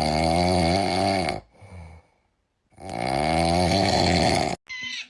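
Loud snoring: two long snores about three seconds apart with a softer breath between them, then a brief higher-pitched sound near the end.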